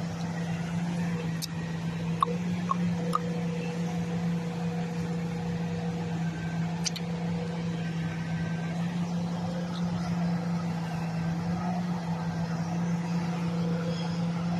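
Diesel engine of a grapple-loader truck running steadily with a low drone while it powers the hydraulic knuckle boom loading tree branches. A few short, sharp knocks sound during the first seven seconds.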